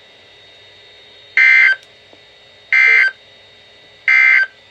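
Three short bursts of Emergency Alert System SAME data tones from NOAA Weather Radio, the end-of-message code that closes the alert, each a harsh warbling blip a little over a second apart, over faint radio hiss.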